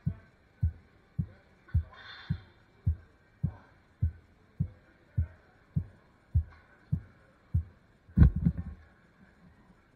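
A regular series of dull, low thumps, about one every 0.6 seconds. They end in a louder clatter of knocks just after eight seconds in.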